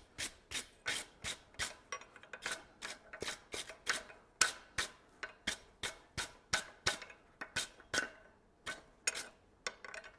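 Hand wire brush scrubbing a hot forged steel tong jaw clamped in a vise, brushing the scale off in quick scratchy back-and-forth strokes, about three a second.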